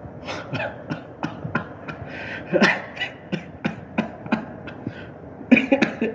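A person making short, breathy bursts with the mouth and throat, about three a second, with a louder cluster of bursts near the end.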